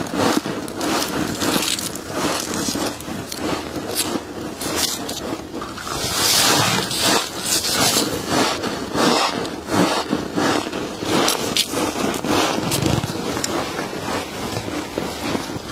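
Close-up crunching and scraping of frost, a dense run of crackly clicks and gritty scrapes with louder swells.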